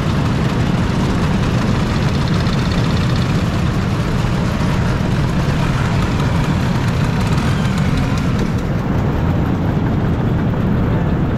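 A vehicle engine running steadily, without revving up or down.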